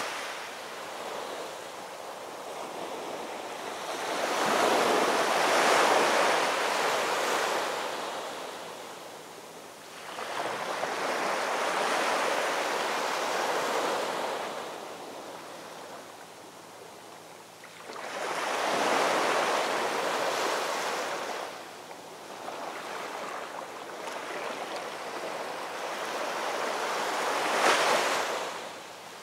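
Ocean surf: waves breaking and washing in. The noise swells and fades in about four surges several seconds apart, and the last, near the end, is the sharpest.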